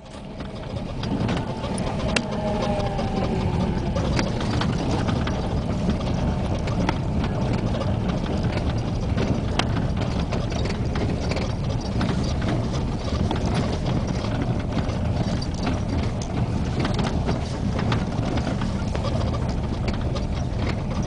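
Road and engine noise inside a vehicle driving over a rough, potholed gravel road: a steady low rumble with frequent clicks and knocks from stones and rattling parts. It fades in over the first second.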